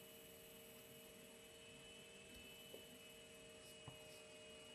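Near silence: room tone with a faint steady electrical hum of a few pitches, and one faint click near the end.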